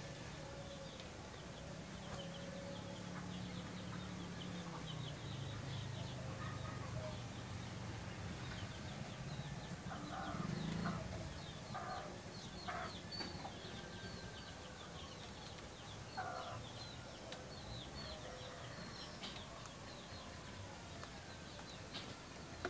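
Birds in the background: many short, high chirps throughout, and a few louder chicken clucks a little past the middle. A low hum runs under the first half.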